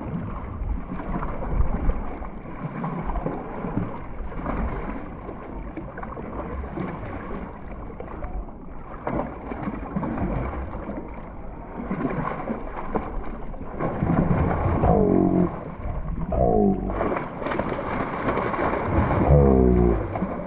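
Surface water splashing and churning as a swim shad lure is ripped in fast figure-eights and jacks strike at it, ending with a hooked jack thrashing at the surface. A steady low rumble runs underneath, and the splashing swells near the end.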